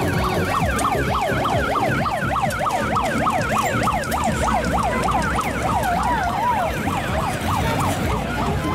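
Several overlapping siren-like whoops, each rising and falling quickly, about three a second, with a wavering trill near the end before they fade, over a low rumble.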